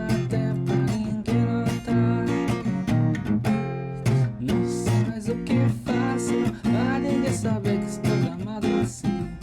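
Old acoustic guitar strummed in a steady rhythm, playing the song's chords without singing.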